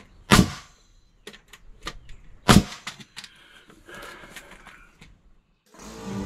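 Pneumatic framing nail gun firing twice into treated 2x4 lumber, about two seconds apart, each a sharp loud shot, with lighter clicks and knocks of the tool and wood between. Background music comes in near the end.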